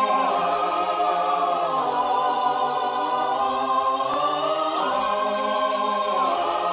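Music: a choir singing slow, sustained chords that change every couple of seconds.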